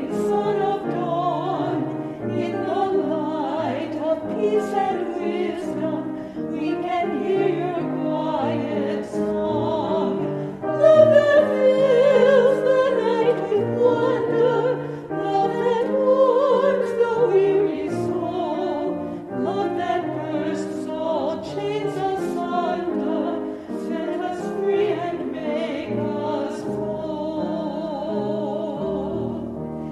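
Sung evening-prayer liturgy: a voice singing with instrumental accompaniment.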